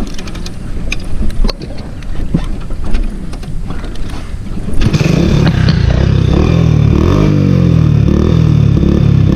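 Hero Honda single-cylinder motorcycle with an M4 exhaust and no dB killer. For the first few seconds there is irregular clatter and knocking. About five seconds in, the engine comes up to a loud steady run, its pitch rising and falling with the throttle.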